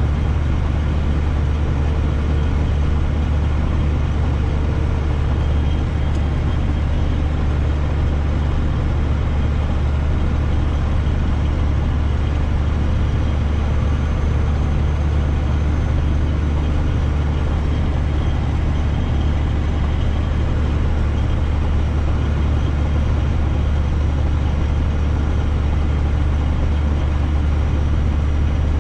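Semi-truck's diesel engine running with a steady low drone, heard from inside the cab, with no change in pitch or level.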